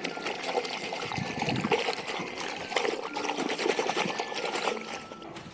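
Water trickling and splashing in irregular bursts.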